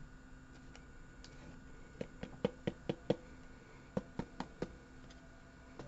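Light plastic clicks and taps from a trading card being slid into a rigid plastic top loader and the holder handled: a quick run of about five, then four more about a second later.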